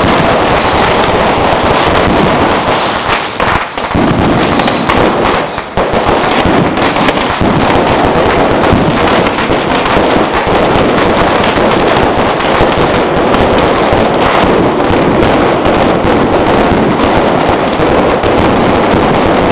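A fireworks barrage going off without pause: dense, loud crackling and banging from rockets rising and bursting. Short whistling glides run through the first several seconds, and there are two brief lulls about four and six seconds in.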